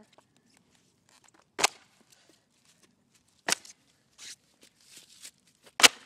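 Three sharp wooden knocks of a skateboard deck striking the ground, about two seconds apart, the last the loudest. Faint scuffing comes in between.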